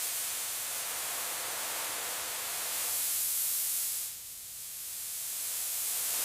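Paint spray gun hissing in two long passes: the hiss dips about four seconds in, then builds again and stops sharply.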